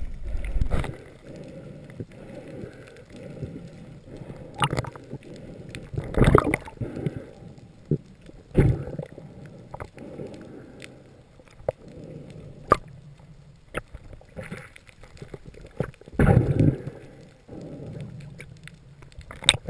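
Underwater sound heard through a camera housing: muffled swooshes and gurgles of water moving as the diver swims, every few seconds, over a low wash, with a few sharp clicks and knocks.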